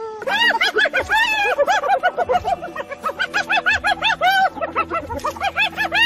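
An animal's fast run of short, high, arched laugh-like calls, several a second, giggling on and on with only brief breaks.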